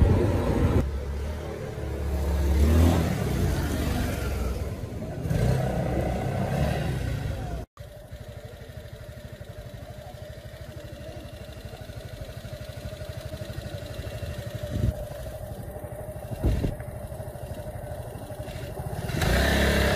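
Motor scooter engine idling steadily, a low even hum with a fixed pitch. It follows a few seconds of louder, uneven street noise and carries two short thumps near the end.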